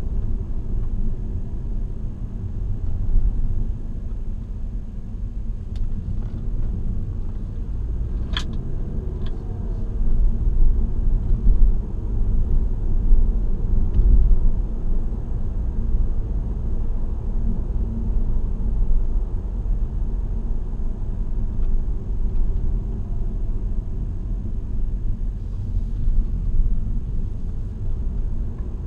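Steady low rumble of a car on the move, with road and engine noise heard from inside the cabin. There is a single sharp click about eight seconds in.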